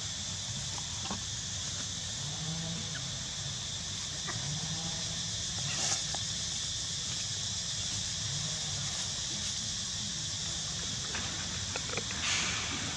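Steady high-pitched insect drone, with a few short clicks and rustles over it, the loudest about six seconds in and again near the end.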